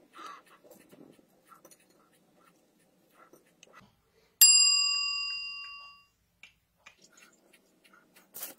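A single bell-like ding, struck sharply and ringing away over about a second and a half, an on-screen notification sound effect. Before it, faint soft taps and rustles of a bun being handled, and a short burst of noise near the end.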